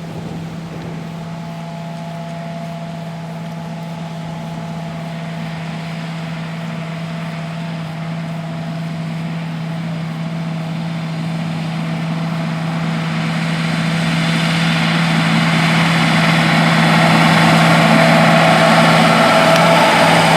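Large diesel farm machinery at work in a cornfield, combines harvesting and a tractor pulling a grain cart, with a steady engine drone that grows gradually louder as the machines draw nearer.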